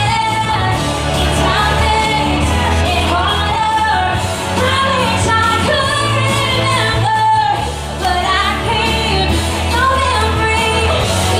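Pop song with a singing voice over a steady bass line.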